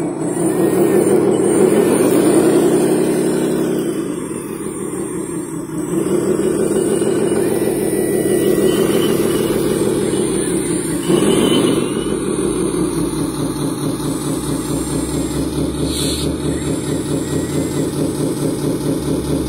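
Radio-controlled hydraulic CAT wheel loader running: a continuous engine-like drone that rises and falls in pitch as the machine is worked, then settles into a steady, pulsing idle after about twelve seconds.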